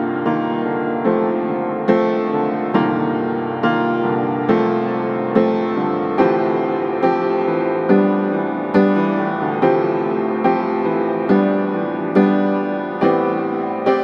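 Background piano music: chords struck at an even pace, a little more than one a second, each ringing and fading into the next.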